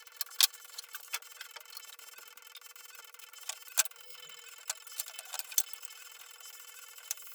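Irregular sharp clicks and knocks from hand work on wooden cabinet panels, over a steady faint hiss.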